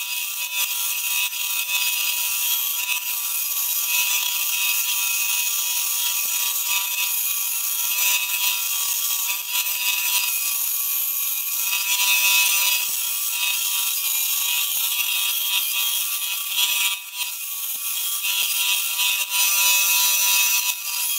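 Vertical bandsaw cutting thick aluminium angle plate, the blade running through the metal along a curved line with a steady, high-pitched hiss and a few faint steady tones underneath.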